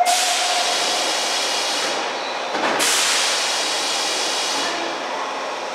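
Nagoya subway 2000-series train's doors opening during the pre-service check: a loud hiss of air starts suddenly and eases about two seconds in, and a second hiss follows about a second later. The tail of a steady warning tone fades out in the first second.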